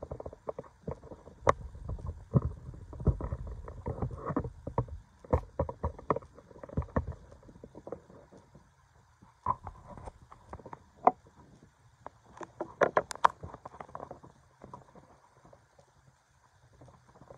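Cotton flag being folded by hand: irregular cloth rustles and light, sharp snaps as the fabric is pulled taut and creased, over a low rumble. The snaps are busiest in the first seven seconds and cluster again around thirteen seconds.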